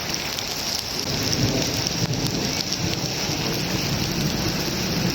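Heavy rain falling steadily with a constant hiss, and a low rumble of thunder that starts about a second in and rolls on.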